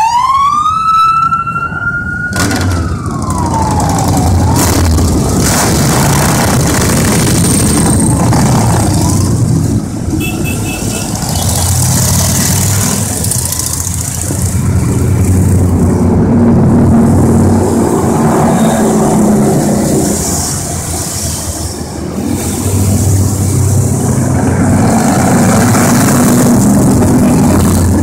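A police car siren wails up and down for the first few seconds, then a stream of motorcycles rides past one after another, their engines running and overlapping, swelling and fading as each bike passes.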